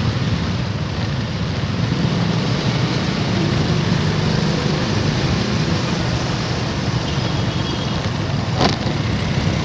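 Motorcycle engine running at low speed, with steady road and traffic noise around it while riding in traffic. A single sharp click or knock near the end.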